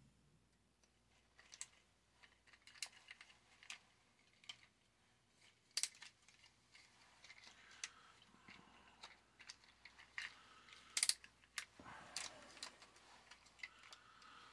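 Scattered faint plastic clicks and snaps of a Beast Wars Megatron action figure's joints being turned and locked into place while it is transformed into robot mode, with light handling rustle between them.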